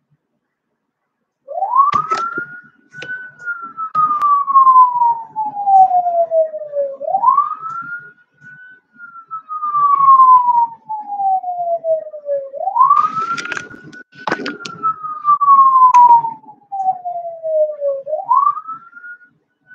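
Emergency-vehicle siren in wail mode: a single tone climbs quickly and then falls slowly, over and over, about every five and a half seconds, starting about a second and a half in. A few sharp knocks sound near the start and about two-thirds of the way through.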